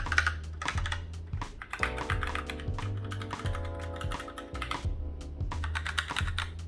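Typing on a Razer BlackWidow Lite mechanical keyboard with silent Razer Orange switches: quick, irregular runs of soft key clicks. Background music plays underneath.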